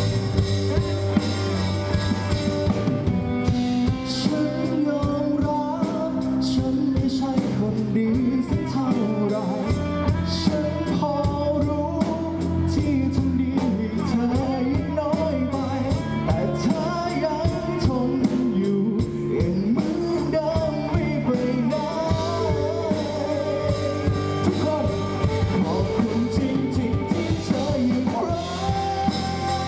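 Live band music: a male singer singing through a microphone, backed by electric bass guitar and a drum kit.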